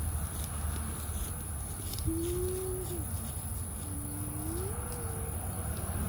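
A dove cooing: two long, low, pure notes, the first level then dropping, the second gliding upward about a second later.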